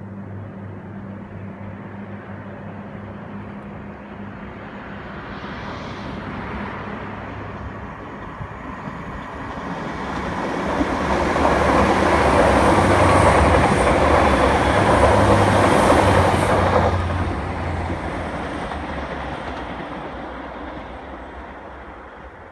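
A six-car train of two coupled NI Railways Class 3000 diesel multiple units accelerating past. A low engine hum builds as the train approaches and grows loud for several seconds as it passes. It drops off fairly sharply about 17 seconds in, then fades as the train runs away.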